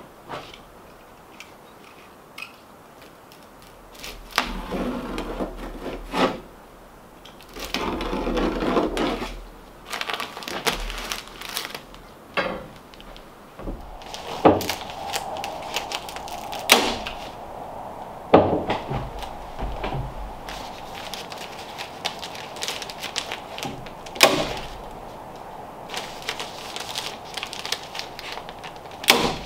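Hands-on work fitting fiberglass batt insulation between wooden floor joists: rustling handling noise and scattered sharp clicks and knocks.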